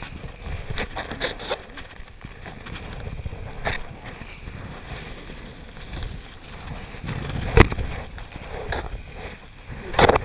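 Wind rushing and buffeting over the microphone of a paraglider pilot's harness-mounted camera as he falls in a stalled, twisted wing, with a few sharp knocks; the loudest comes about seven and a half seconds in and another near the end.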